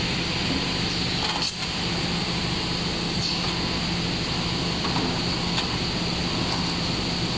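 Four-screw cast stretch film extruder line running: a steady machine drone with a low hum and a high whine. There is a brief hiss about a second and a half in.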